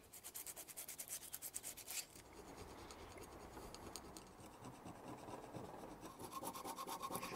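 Hand abrasive scrubbing the sides of an engine oil cooler, rubbing off blistered paint ahead of priming. Quick, even strokes for the first two seconds, then softer, steadier rubbing.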